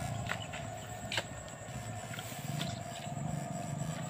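Wading through a shallow, weedy ditch: water sloshing, with a few sharp clicks and a steady faint hum underneath.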